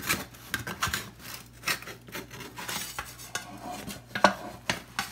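Metal spatula scraping and knocking against the sides of a dark metal deep-dish pizza pan as it loosens the baked crust: an uneven run of scrapes and clinks, the sharpest a little past four seconds in.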